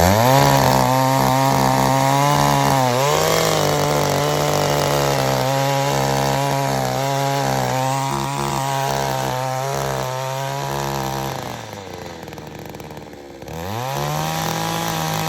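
Small cultivator's petrol engine revving up sharply and held at high speed for about eleven seconds. It drops back to idle, then revs up again near the end.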